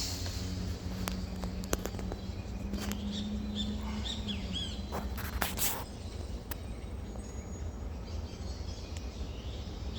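Songbirds calling in short, hooked chirps, several in quick succession in the middle, over a steady low rumble. A low steady drone runs through the first half and fades out, and there are a few sharp clicks, the loudest a little past the middle.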